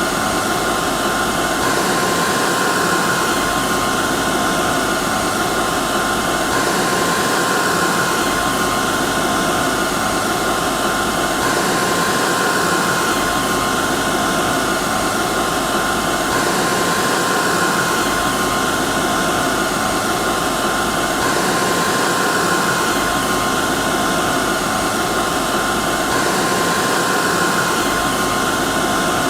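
Hair dryer running steadily: a constant rush of air with a faint steady whine from its motor, unchanging in level.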